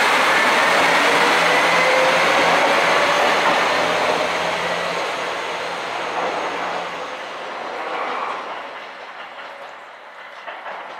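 KiHa 261 series diesel limited express train running past and pulling away: engine and wheel noise loud for the first few seconds, then fading steadily as it recedes, with a few faint clicks of wheels over rail joints near the end.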